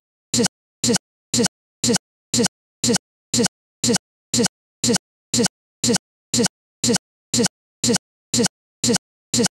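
A fragment of sound lasting a fraction of a second, repeated identically about twice a second with dead silence between the repeats: a stuck, stuttering digital audio loop, the sign of a frozen or corrupted recording.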